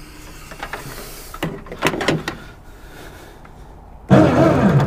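A few knocks and clanks of a home-made truck-bed boat loader's parts being handled and lowered, then a loud rough noise for under a second near the end.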